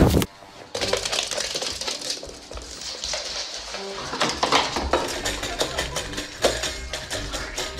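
A dog at a stainless steel bowl on a wooden floor, the metal bowl clinking and rattling in many small irregular knocks. A brief loud burst comes at the very start.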